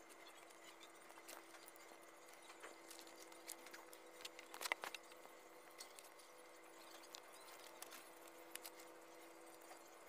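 Faint handling noise from hands twisting string into a cord: scattered small clicks and rustles, with a brief cluster of sharper clicks about halfway through. A faint steady hum lies underneath.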